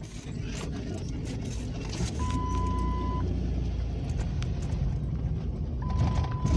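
Car driving slowly, heard from inside the cabin: a steady low engine and road rumble. A steady high beep sounds for about a second a couple of seconds in, and again near the end.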